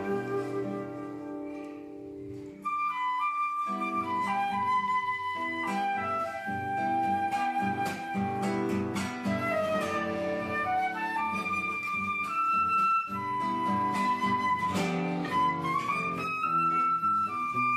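Live instrumental music: a held, sliding high melody over lower chordal accompaniment, with a brief quieter passage about two seconds in.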